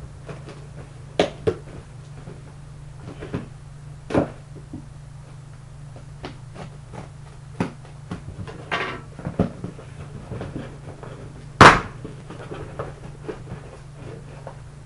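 A package being opened and handled by hand: scattered knocks, taps and rustles at irregular intervals, with one sharper, louder knock about two-thirds of the way through.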